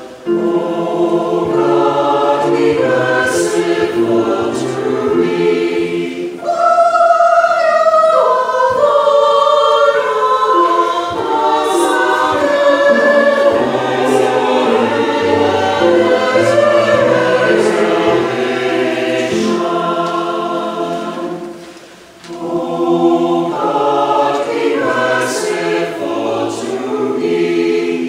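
Mixed choir of men's and women's voices singing a sacred choral anthem in a church, with brief breaks between phrases, a short one about six seconds in and a deeper one near 22 seconds.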